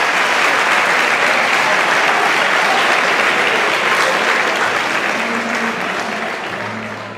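Audience applauding, dying away over the last couple of seconds.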